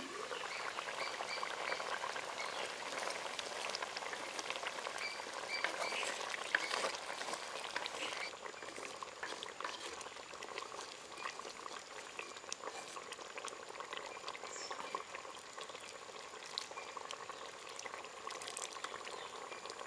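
Potato curry in thick coconut milk bubbling and popping at a boil in a clay pot. The boiling is busiest in the first half, and the curry is stirred with a wooden spoon partway through.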